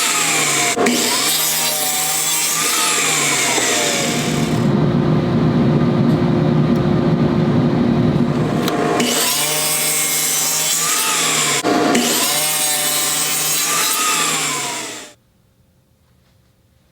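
Power saw cutting oak, its whine wavering in pitch as the blade loads in the wood, with a deeper, duller stretch in the middle. The noise stops abruptly near the end.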